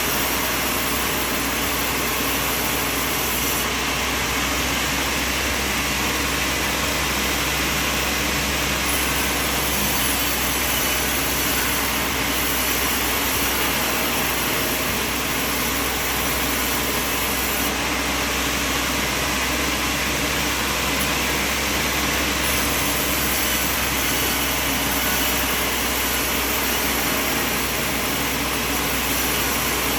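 Sawmill machine running steadily, a constant mechanical noise with a low hum underneath.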